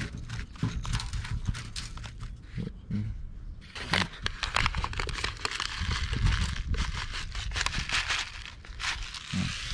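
Paper seed envelope crinkling and rustling as it is handled and seeds are shaken out into a palm, with small clicks of gravelly potting grit under the fingers. The rustling is densest from about four to eight seconds in.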